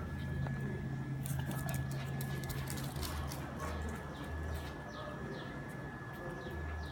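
A dog's claws clicking on a hard floor as it runs off, then a string of short, falling chirps from small birds.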